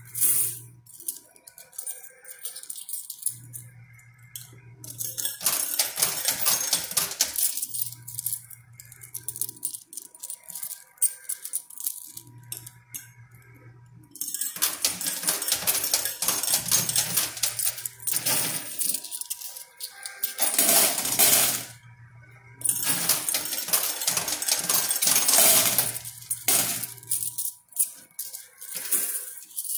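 Coin pusher machine in play: quarters clinking and clattering onto and across the coin-covered playfield in several long stretches, with single clinks between them. A low hum comes and goes every few seconds in the quieter gaps.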